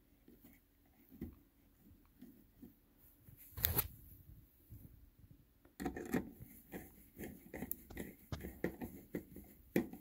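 Faint handling noise on a doorbell chime: small clicks, one sharp knock about three and a half seconds in, then steady scraping and clicking from about halfway as a screwdriver turns the terminal screws to fix a resistor in place.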